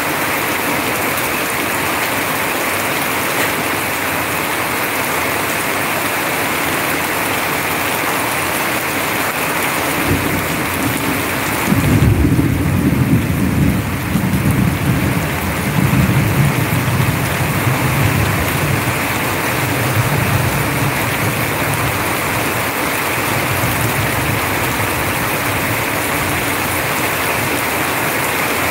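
Heavy rain pouring steadily, with streams of water falling close by. About ten seconds in a long rumble of thunder starts, loudest for several seconds, then dies away in rolling swells.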